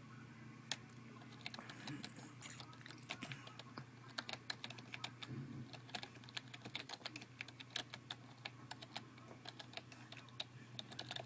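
Typing on a computer keyboard: irregular runs of quick key clicks, several a second, over a low steady hum.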